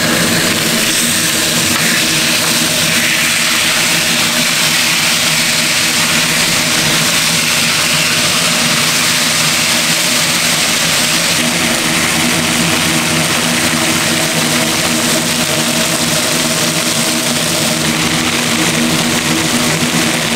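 A steady machine drone: a low hum with a dense hiss over it, running evenly without a break.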